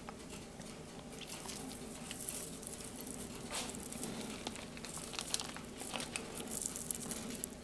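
Piping bag being squeezed to pipe donut batter into a donut pan: faint crinkling and soft squishing with a few light clicks, over a low steady hum.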